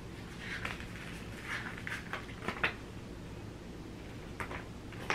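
A few light clicks and knocks with soft rustling in between, as small objects are handled close by.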